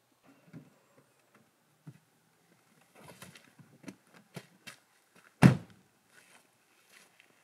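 A car door, on a BMW SUV, slammed shut with one heavy thud about five and a half seconds in. Before it come a few soft knocks and rustles as someone climbs out of the driver's seat.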